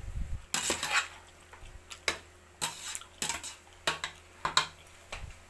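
Metal spoon scraping and clinking against the side of a stainless steel pot while stirring a moist chopped mixture, in repeated irregular strokes about every half second.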